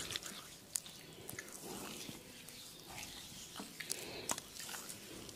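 Close-miked massage sounds: hands rubbing and kneading skin and hair, with a few sharp scattered clicks.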